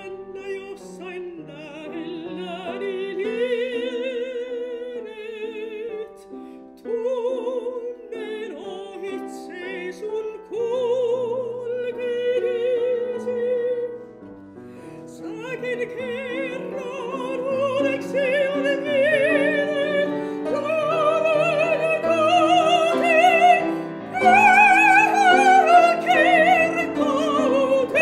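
Operatic soprano singing a classical art song with wide vibrato, accompanied by piano. The sung line climbs and grows louder over the last third.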